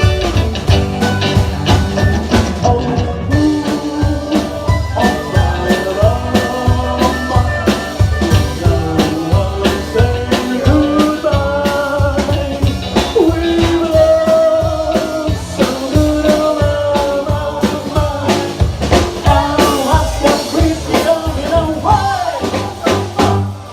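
Live rock band playing an instrumental passage: drums keep a steady beat under a wandering lead melody line, with bass underneath.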